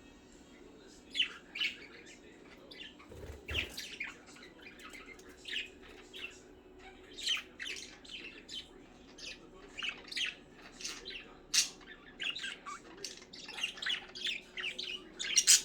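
Pet budgerigars chirping and squawking in short, sharp, irregular calls. The calls start about a second in and come thicker near the end.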